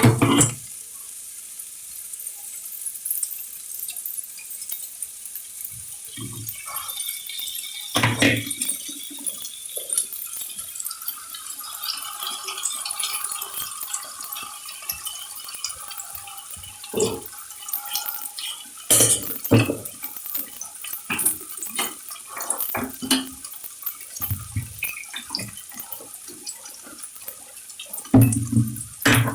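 A spoon scrapes and taps against a bowl in scattered knocks and clinks as a ground poppy-seed and cashew paste is scraped out. Water runs into the bowl to rinse out the leftover paste.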